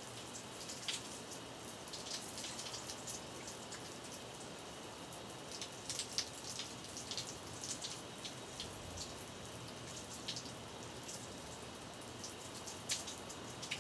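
Running water spattering and dripping: a steady hiss with irregular sharp drip-like ticks, bunched in short spells.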